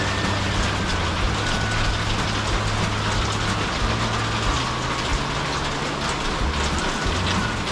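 Pouring rain falling on a corrugated metal roof overhead: a dense, steady hiss of fine ticks, with a low steady hum underneath.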